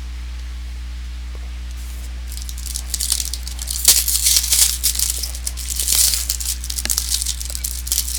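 A foil trading-card pack being torn open and crinkled, starting about two seconds in and going on in irregular crackling bursts, over a steady low electrical hum.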